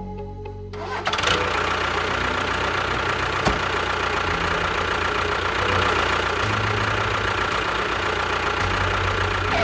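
A small motor running steadily, starting about a second in, with music playing underneath.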